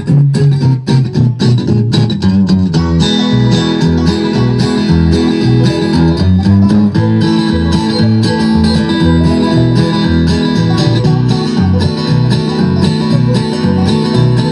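A live bluegrass band playing an instrumental break: quick picked notes on acoustic guitar and banjo over a steady bass line, with a new lead line taking over about three seconds in.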